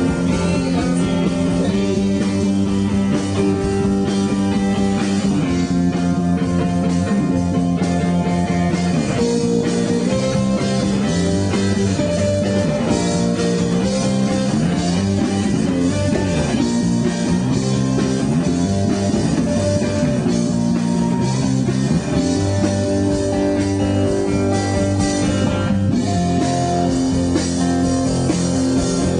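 Live rock band playing an instrumental passage: electric guitars holding ringing notes over a drum kit, with guitar notes sliding up and down in pitch about halfway through.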